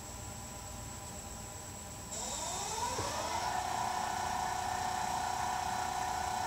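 Electric wood lathe starting up about two seconds in: a whine rises in pitch for a second or so as the motor brings the wooden workpiece up to speed, then holds steady.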